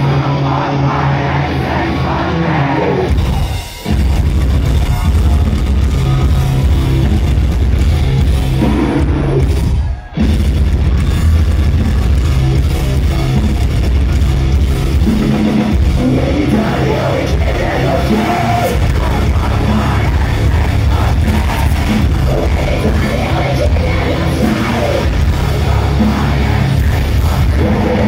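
Live heavy metal band playing in a large hall, recorded from among the crowd: distorted guitars, drums and shouted, sung vocals. The music drops out briefly twice, about 4 and 10 seconds in.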